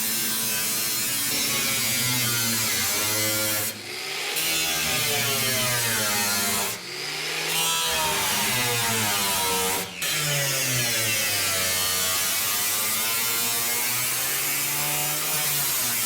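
Power tool cutting the steel cab floor, its motor pitch rising and falling as it bogs under load. It stops briefly three times and restarts.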